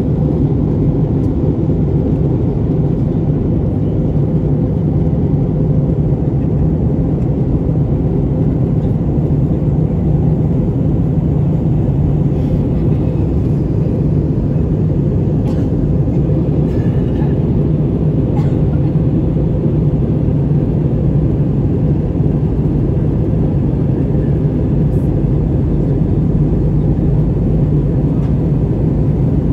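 Steady low drone inside the cabin of an Airbus A321 airliner: engine and air noise, with a few faint clicks partway through.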